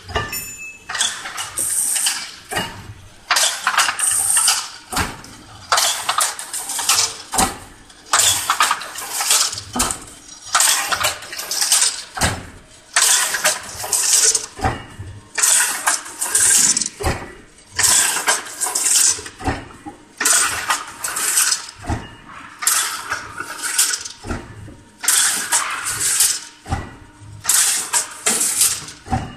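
Crimped wire mesh weaving machine running, a repeating cycle of metallic clatter and knocks roughly once every second to second and a half.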